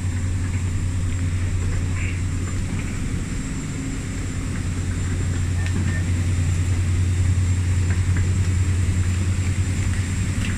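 Steady low mechanical hum of airliner air-conditioning and ground air systems at a boarding door, growing a little louder about halfway through, with a faint high steady whine above it.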